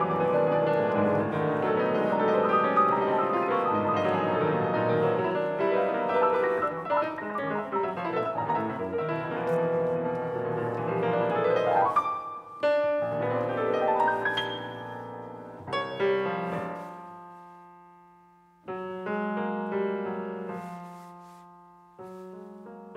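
Grand piano played solo: a dense, fast passage of many notes climbs in a rising run to a peak about twelve seconds in. Then it thins to separate struck chords that are left to ring and die away.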